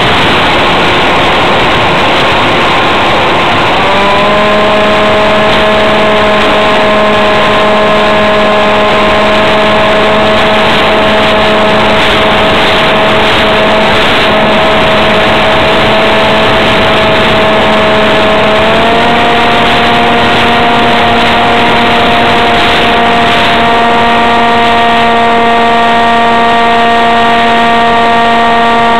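Electric motor and propeller of a ParkZone F-27B Stryker foam flying wing whining in flight, heard through a camera taped to the plane, over loud wind rush. The whine sets in about four seconds in and steps up in pitch a little after halfway.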